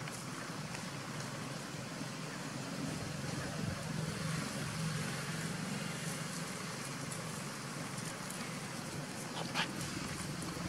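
Steady outdoor background rumble and hiss, like distant road traffic, with a few faint clicks and one sharper click near the end.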